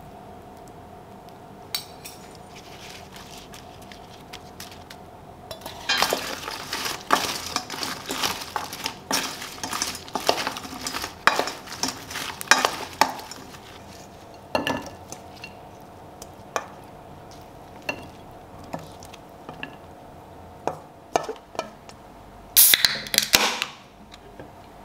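Wooden spatula tossing fried chicken wings in a stainless steel mixing bowl: a dense run of scraping and knocking against the metal for several seconds, then scattered single knocks, and a short burst of clatter near the end.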